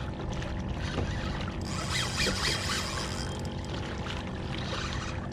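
Water rushing and splashing along a kayak's hull as it is towed by a hooked shark, with a few light clicks. The rushing grows louder and hissier for about a second in the middle.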